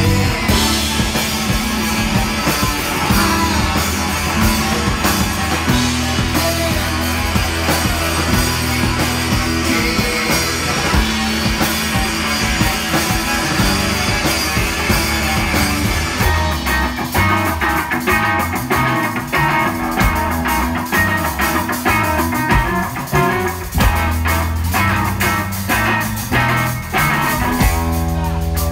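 Live psychedelic rock band playing electric guitar, bass guitar and drum kit. A dense wash of cymbals in the first half gives way to sharp, separate drum hits from about halfway through.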